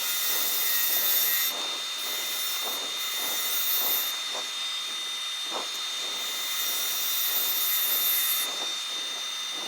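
Wood lathe spinning a monkey puzzle wood piece while a turning tool cuts into it: a steady hiss of cutting with a thin, steady high-pitched whine underneath.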